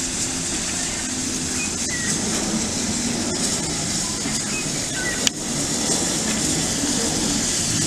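Victorian Railways J-class steam locomotive running slowly toward the listener, a steady sound with no clear beat, with one sharp click a little after five seconds in.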